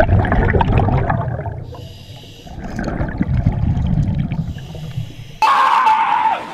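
Underwater scuba breathing: regulator inhalations hissing and exhaled bubbles rumbling. About five and a half seconds in it is cut off by a sudden loud sound carrying a steady tone that dips slightly and ends about a second later.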